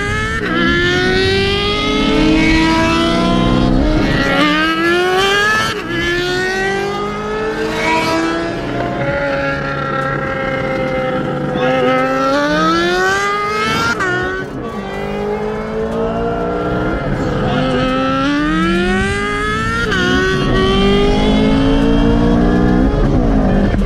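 Twin-turbo Ford Shelby GT350's 5.2-litre V8 accelerating hard through the gears, its pitch climbing and then dropping sharply at each upshift, several times over.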